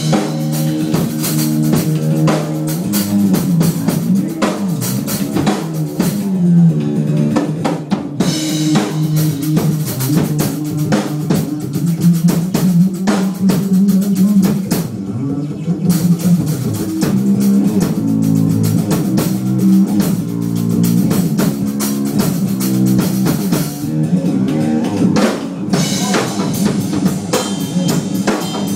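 Improvised jam of a Whamola, a one-string electric bass struck with a stick and bent in pitch with a lever, over a drum kit. The Whamola's low notes slide up and down in pitch while the drums keep a steady beat, dropping out briefly twice.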